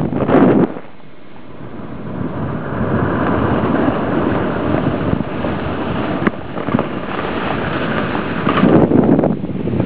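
Wind buffeting a head-mounted camera's microphone while riding down a powder snow slope, with the rushing hiss of sliding through snow. Loud at first, dropping away briefly about a second in, then building to a steady rush with louder gusts near the end.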